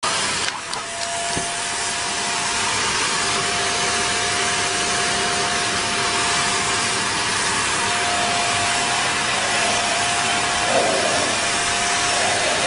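An electric motor-driven appliance, such as a vacuum cleaner or hair dryer, running steadily with a loud rushing noise and a constant whine.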